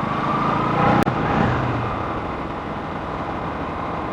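Motor vehicle running along the road: steady engine and road noise, swelling briefly before a sharp click about a second in.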